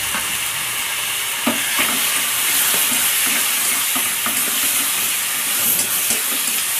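Chopped vegetables and just-added sauce frying hard in a steel kadhai over a high gas flame: a steady, loud sizzle. A metal spatula stirs and knocks against the pan now and then, with sharp irregular taps.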